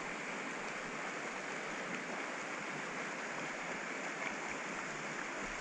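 Steady, even rush of a clear stream's flowing water.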